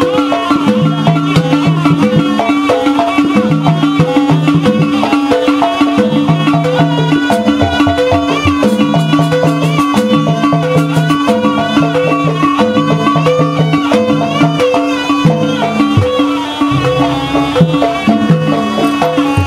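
Traditional jaranan buto accompaniment music: a percussion ensemble keeps a steady repeating pattern under a held low tone, with a wavering high melody line on top.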